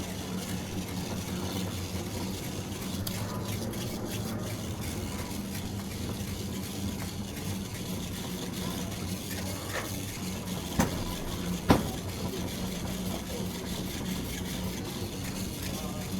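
Big-box warehouse store ambience: a steady low electrical or refrigeration hum under a general background wash, with two sharp clacks about a second apart two-thirds of the way through.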